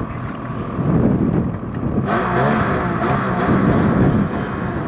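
Snowmobile engine running, then revving up about two seconds in, its pitch rising and wavering as the track spins on the truck's sled deck.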